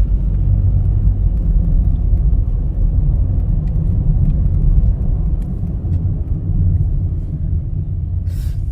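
Steady low road rumble of a car being driven, heard from inside, with a short hiss near the end.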